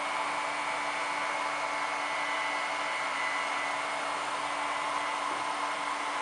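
Cooling fans of two UnA9 300W hobby battery chargers and their 300W switching DC power supplies running steadily under charging load: an even whoosh with a steady low hum and a faint high whine.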